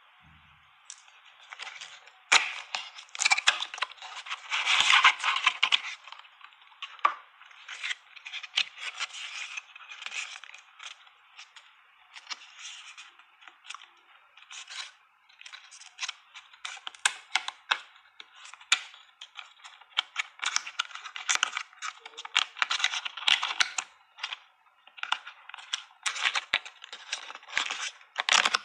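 Paper and cardboard packaging of an Apple MagSafe charger being handled: irregular rustling, scraping and small clicks as the box is opened, the folded paper tray is spread out and the cable is pulled from its paper holders, with a few brief lulls.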